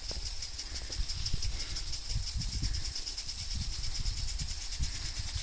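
Impact sprinklers spraying water across a field: a steady high hiss with a fine, rapid pulsing, under a low, uneven rumble of wind on the microphone.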